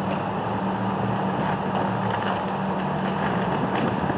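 A steady low hum with a few faint, short clicks in the second half, typical of brake pads being handled and set into a caliper bracket.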